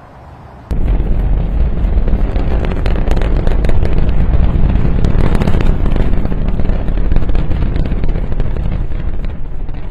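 Rocket engines of two SpaceX Falcon Heavy side boosters firing their landing burns. A low rumble jumps, under a second in, to a loud, crackling roar that eases off near the end.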